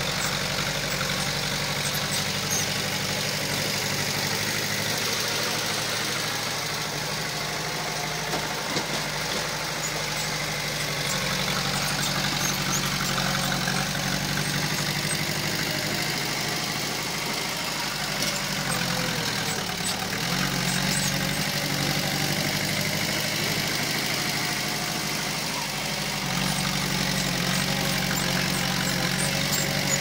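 Diesel engine of heavy earthmoving equipment running steadily. Its note shifts a few times, dipping briefly about two-thirds of the way in and then picking up again.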